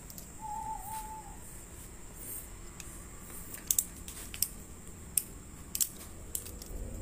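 Half a dozen sharp, scattered clicks in the second half, over a faint steady hiss, with a brief thin high tone about half a second in.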